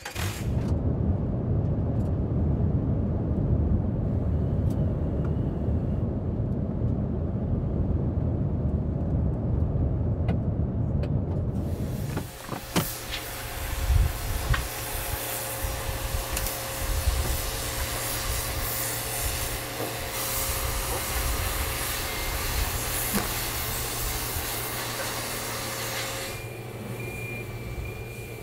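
Land Rover Defender driving, heard from inside the cab: a steady low engine and road rumble. About twelve seconds in it turns to a brighter, hissing road and wind noise with a steady hum underneath.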